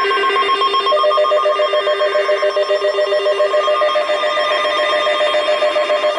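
Electronic alert tones: several steady pitches trilling rapidly, about five pulses a second, like a ringing phone bell. A new, higher tone joins about a second in, and the lowest one fades out around two-thirds of the way through.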